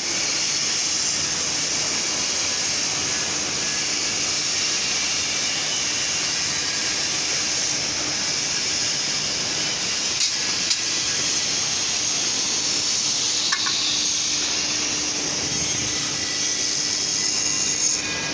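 A steady machine hiss at an even level, with a few faint ticks about ten seconds in and a low hum joining it in the last few seconds.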